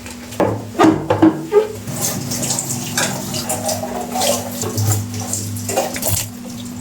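A few clattering knocks, then water running from a tap into a sink for several seconds, over a steady low hum.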